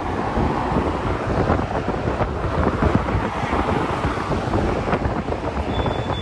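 Strong air blast from a large evaporative air cooler's fan buffeting the microphone: a steady rushing with heavy low rumble.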